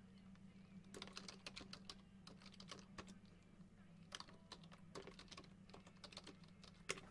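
Faint, quick, irregular clicking of typing on a computer keyboard, over a faint steady low hum.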